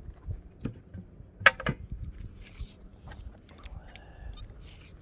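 Scattered clicks and knocks of small metal pieces being handled at a magnet-fishing magnet, the loudest a sharp ringing metallic click about a second and a half in, over a low wind rumble on the microphone.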